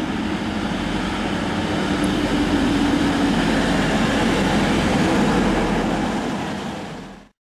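Steam-hauled passenger train passing, its coaches rolling by with a steady noise that builds slightly, then fades quickly and cuts off near the end.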